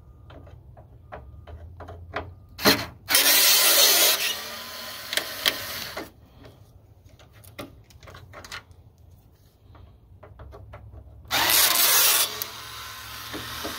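Small cordless electric screwdriver running on screws in the truck's headlight opening, in two short runs: one about three seconds in and one near the end. Light clicks and handling taps come between the runs.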